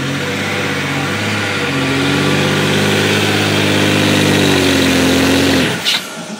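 Pickup truck engine held at high revs for a burnout, with the tyre spinning on wet concrete. The revs drop away suddenly near the end.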